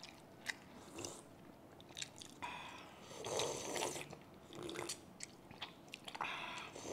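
Sinigang broth being sipped and slurped from bowls, with small mouth clicks throughout. The longer slurps come about two and a half seconds in and again near the end.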